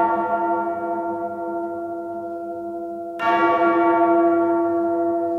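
A large church bell tolling: the ring of an earlier stroke slowly fades, then a second stroke about three seconds in rings out and fades in turn.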